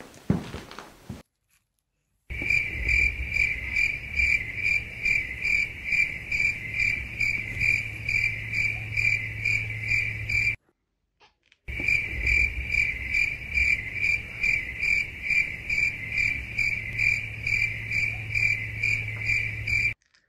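Cricket chirping, a steady high pulsing chirp about four to five times a second over a low hum. It stops for about a second in the middle and then resumes, with abrupt starts and stops typical of an added sound effect.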